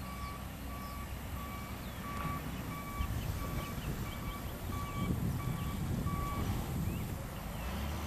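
A vehicle's back-up alarm beeping at an even pace, about three beeps every two seconds, over a low engine rumble. The beeping stops after about six seconds.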